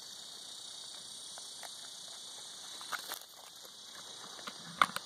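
A steady, high-pitched chorus of desert insects, with a few sharp clicks about three seconds in and a louder click near the end.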